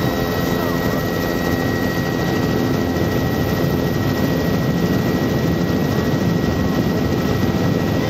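Light turbine helicopter in flight, its engine and rotor running steadily, with a thin high whine over the rotor's low drone.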